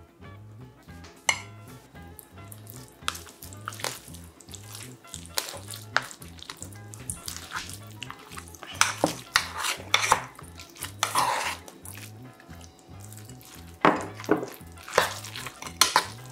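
A spoon mixing bibimbap in a gold-coloured metal bowl, with repeated sharp clicks and scrapes of metal on the bowl. The clicks come thickest about nine to ten seconds in and again near the end. A quiet background music beat runs underneath.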